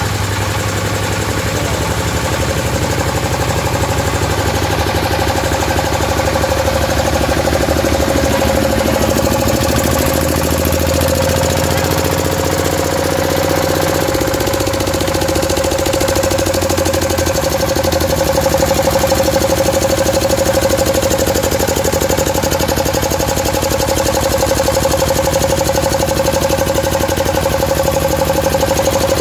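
Bharat 10 hp single-cylinder, water-cooled stationary diesel engine running steadily. Its note shifts slightly around the middle.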